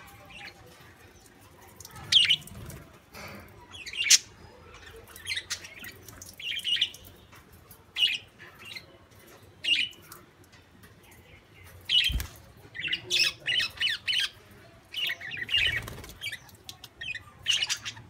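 Budgerigars chirping and squawking in short, scattered calls, growing busier in the second half. A single sharp knock comes about twelve seconds in.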